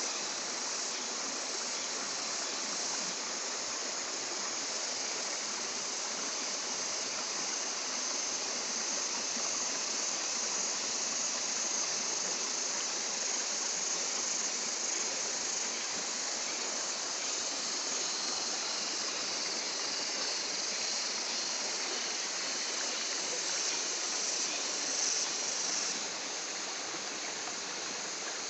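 Shallow rocky stream running steadily, an even hiss of flowing water, a little quieter near the end.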